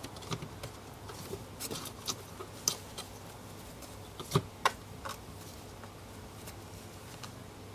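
Cats' paws and claws scrabbling on a woven wicker box lid, making scattered irregular clicks and scratches, with two sharp knocks a little after four seconds in.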